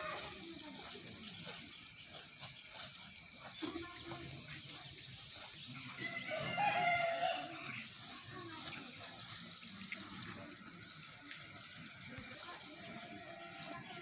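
A rooster crowing once, about six seconds in, over a high, pulsing buzz that comes and goes several times.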